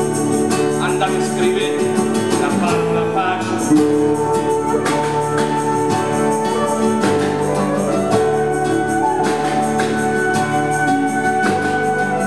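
A small live ensemble playing: a strummed archtop guitar with a bowed violin and cello holding long notes, backed by harp and drums.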